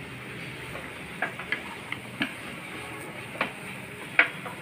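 Wooden spatula stirring a thick coconut mixture in a nonstick kadhai, giving about half a dozen irregular light taps and scrapes against the pan, the loudest near the end, over a faint steady hiss.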